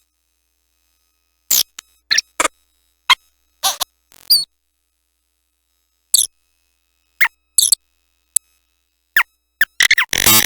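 Circuit-bent My First Smart Pad toy playing its pitch-modified samples as short, squeaky chirps and glitchy blips, about a dozen, separated by dead silence. A denser, noisier burst comes near the end.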